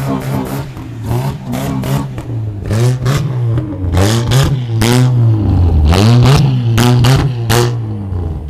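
Chevrolet S10 pickup's engine revved repeatedly, its pitch climbing and dropping with each blip, with sharp cracks between the revs that are loudest from about the middle of the stretch on.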